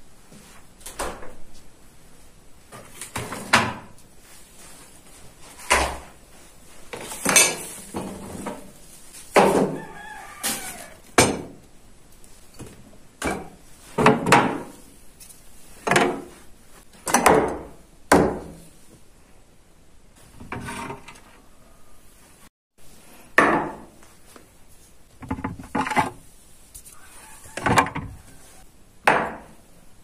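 Glass jars and plastic food containers being lifted out of and set down on refrigerator shelves, giving a series of separate knocks and clatters. Chickens are calling between them, with a rooster crowing.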